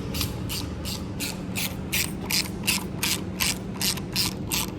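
Hand ratchet wrench clicking in quick, even strokes, about three clicks a second, as a fastener is worked loose on an engine being taken apart.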